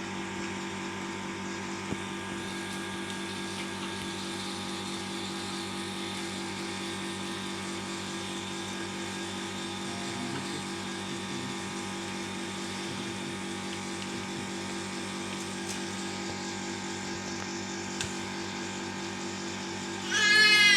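A steady machine hum with several fixed tones. Near the end a baby lets out a loud cry that rises and falls in pitch.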